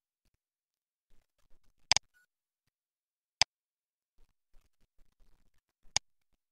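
Three sharp single clicks of a computer mouse button, spaced about one and a half to two and a half seconds apart.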